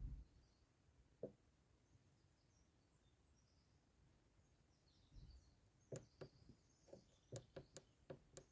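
Near silence, broken by faint clicks and taps: one about a second in, then a quick irregular run of about eight in the last two and a half seconds.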